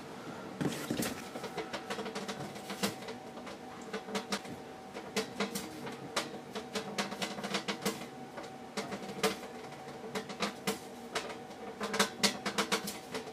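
Plasma Jacob's ladder (Information Unlimited JACK50) running with a quiet, steady hum and irregular crackling ticks as the plasma climbs between the rods. The sound starts about a second in.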